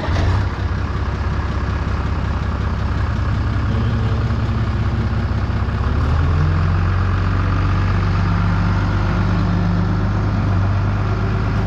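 International 686 tractor engine running steadily, heard close up. About six seconds in its note rises slightly and gets a little louder.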